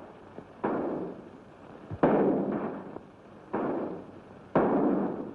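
Gunshots in a shootout: four sharp reports roughly a second apart, each trailing off in an echo over about a second.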